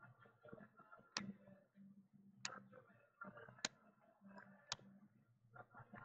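Baseball trading cards being flicked through one at a time in gloved hands, each card giving a sharp click about once a second, with soft rustling between clicks over a faint low hum.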